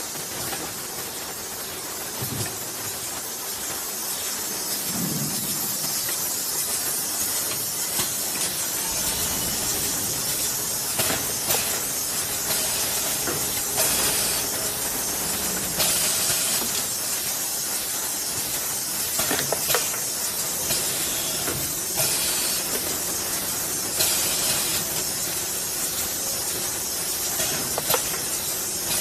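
Automatic linear oil filling and capping machine running, with a steady hiss throughout and scattered sharp clicks and knocks from its moving parts.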